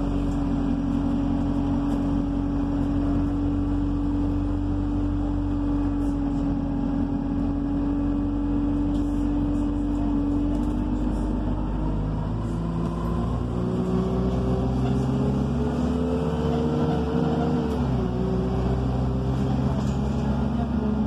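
Buses of Somerset bus 43811's engine and drivetrain heard from inside the passenger saloon while driving: a steady whine over a low rumble for about twelve seconds, then a pitch that climbs as the bus picks up speed and drops sharply about eighteen seconds in, as at a gear change.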